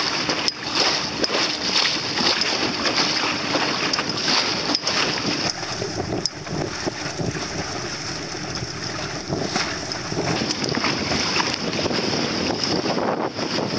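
Wind blowing on the microphone of a small sailing dinghy under way in choppy sea, with water rushing and splashing along the hull. The noise is continuous and swells and dips unevenly.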